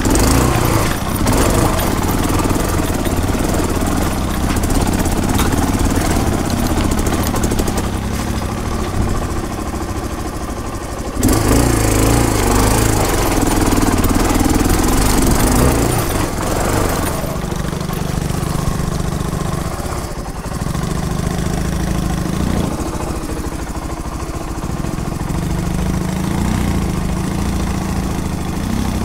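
Motorcycle engine running as the bike rides slowly over a rough trail, heard from on board. It gets louder for a few seconds about a third of the way in, then settles to a steadier, lower note with a few short dips.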